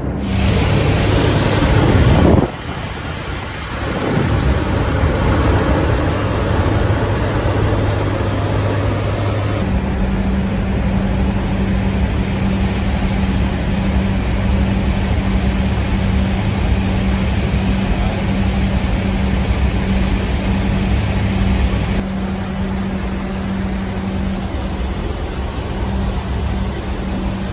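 C-130 Hercules turboprop engines running steadily: a constant low hum with a thin high whine above it, from about ten seconds in. Before that, rough engine and rotor noise from helicopters.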